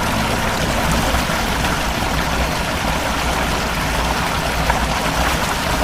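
Steady rushing noise of floodwater, with a low hum underneath; it cuts off suddenly near the end.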